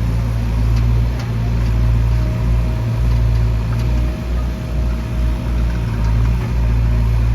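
Mahindra backhoe loader's diesel engine running steadily, with a faint steady whine over the middle few seconds.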